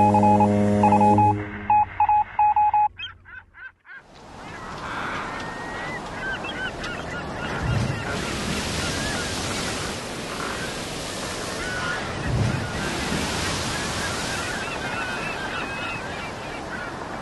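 A few seconds of electronic intro sound: a low held buzzing tone with beeps, then clicks. From about four seconds in, steady wind and surf noise with birds calling over it, plausibly seabirds such as gulls.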